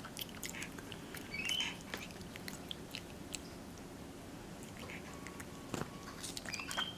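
Capuchin monkey chewing and biting into a juicy mango: scattered soft, wet clicks and smacks, with a couple of short, faint high squeaks, one about a second and a half in and one near the end.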